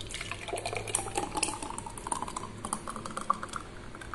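Thick muskmelon milkshake poured from a blender jar into a glass, gurgling and splattering, its note rising as the glass fills.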